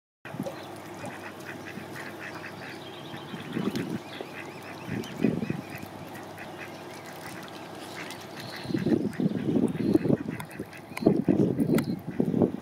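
Waterfowl calling: mute swan cygnets peeping in a steady run of short, high calls, with mallard ducks quacking. The calls come louder and more often in the last few seconds.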